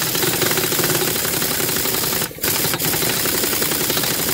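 Pneumatic impact wrench hammering rapidly and continuously on a very tight fitting that will not wind in, with a short break about two seconds in. An air compressor's steady hum runs underneath.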